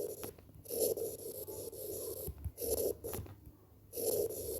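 Handwriting: a pen or marker scraping across the writing surface in several short strokes, one of them lasting about a second and a half.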